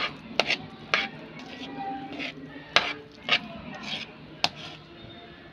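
Metal spoon stirring thick mashed sweet potato and condensed milk in a metal wok, clinking and scraping against the pan at irregular intervals.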